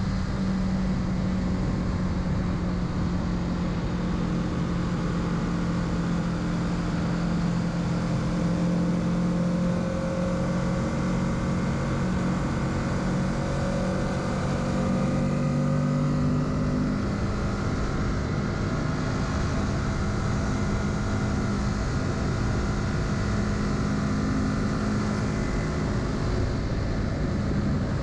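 Kawasaki Z650's parallel-twin engine running at a steady, even pace under way, its note rising and falling slightly.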